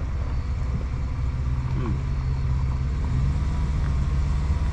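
Car rolling slowly, its engine and tyres making a steady low hum, heard from inside the cabin.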